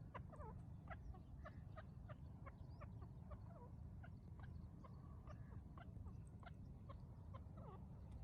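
Francolin (teetar partridge) calling in faint, short, sharp notes, about two or three a second, over a steady low rumble.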